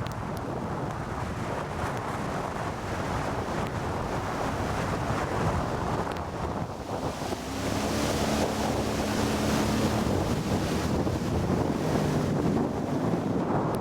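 Heavy wind rushing over the microphone on a moving boat, with an Evinrude E-TEC 60 hp outboard motor running underneath it; a steady engine hum shows through the wind from about halfway in.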